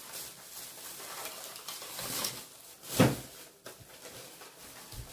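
Rustling and clattering as decorations are handled and put down, with one sharp knock about three seconds in.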